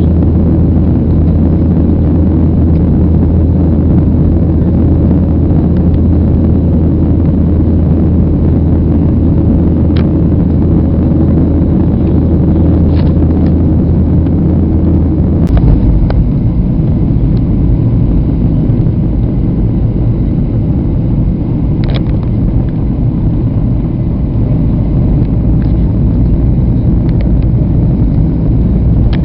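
Jet airliner cabin noise heard from a window seat: a loud, steady rumble of engines and airflow, whose low tone changes about halfway through.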